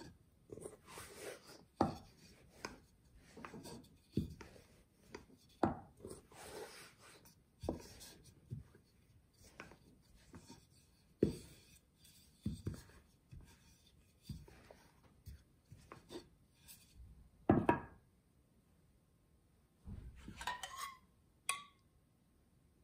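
Rolling pin working dough on a wooden cutting board: a run of uneven knocks and rolling rubs, the loudest about three quarters of the way through. Near the end, a metal bowl and spoon clink twice with a short ring.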